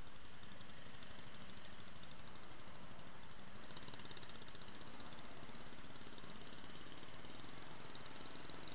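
Motorbike riding slowly in dense city traffic: a steady mix of its own engine and the surrounding vehicles' engines and tyres.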